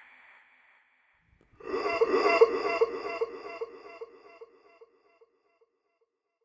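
A pitched, voice-like scary sound effect pulsing about two and a half times a second, which starts after a short silence and fades away over about three seconds, like a sound repeating in an echo.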